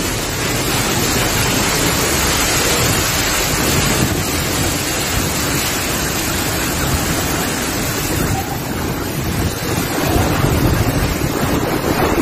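Heavy rain and strong gusting wind of a microburst thunderstorm, a steady loud rush, with the gusts buffeting the phone's microphone.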